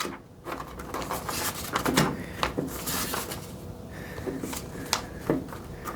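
Scattered light clicks, taps and rustles of hands handling small parts and objects, a few seconds of irregular handling noise.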